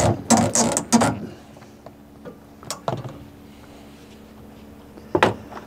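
Dinghy being lowered on stern davits: a quick run of loud clacks and knocks, then a steady low mechanical hum for about three and a half seconds that stops near the end, followed by one sharp knock.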